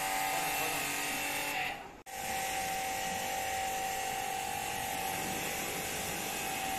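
Electric pressure washer running steadily, a motor whine over the hiss of its water jet rinsing foam off a car's bodywork. The sound fades out briefly about two seconds in, then comes straight back.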